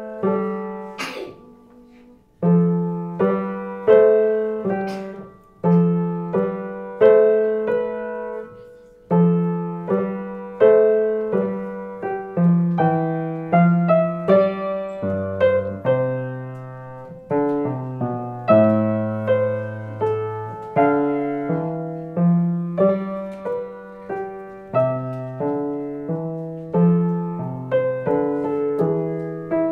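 Solo piano played by a student: a steady, evenly paced piece of struck notes over a bass line, with a short pause about two seconds in.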